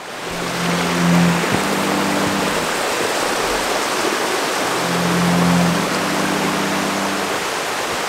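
Steady rushing of a forest creek running high with rain, a loud even hiss. Sustained low notes of background music come in and fade twice.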